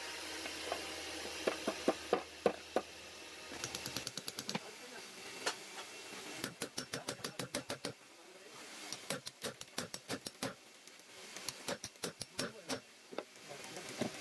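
Rapid light hammer taps on the metal housing of an electric car horn and on a steel punch held against it, coming in quick runs of several strikes, about six a second, with short pauses between runs.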